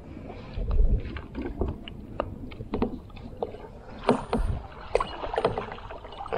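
Irregular knocks and clicks on a fishing kayak, with water lapping against the hull.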